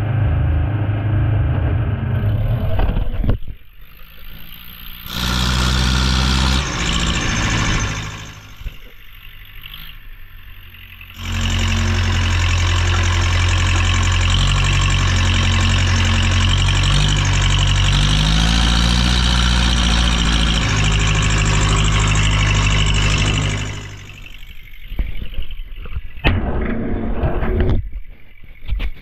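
Allis-Chalmers 715B backhoe's engine running as the machine is driven, its note bending up and down a little in the middle. It drops much quieter three times, for a few seconds each.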